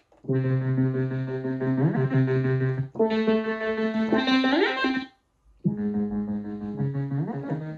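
Yamaha MODX6 synthesizer playing a synth preset: three held chords of about two seconds each with short gaps between them, each ending in a quick rising run of notes.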